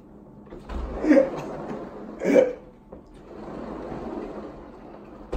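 Young men laughing hard: two loud, short bursts of laughter about a second apart, then a softer, breathy stretch of laughing.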